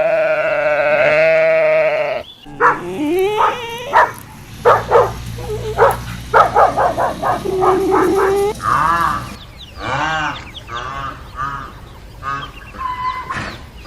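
Livestock bleating: one long, wavering bleat of about two seconds, then a rapid run of many short calls, and in the last few seconds a string of shorter calls that rise and fall in pitch.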